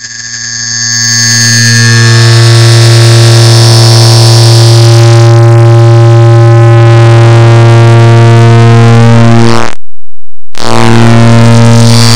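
A clock-ticking sound digitally sped up and stacked until the ticks merge into a loud, continuous buzzing drone with a steady low pitch. It swells over the first two seconds, cuts out for about half a second near the end, then comes back.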